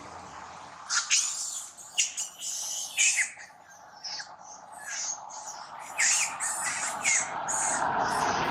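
Baby monkey giving a run of shrill squeals and screeches, the loudest about one, two and three seconds in, with more broken squeaks later.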